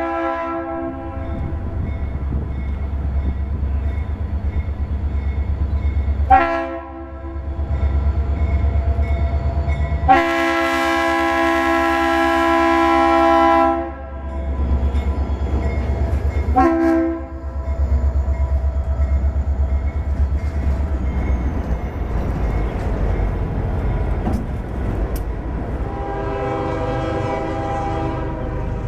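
Norfolk Southern EMD SD40-2 locomotive leading a freight train past, sounding its air horn in several blasts: a short one about six seconds in, a long one of nearly four seconds around ten seconds in, another short one soon after, and a fainter one near the end. Under the horn runs the steady low rumble of the locomotive's diesel and the train.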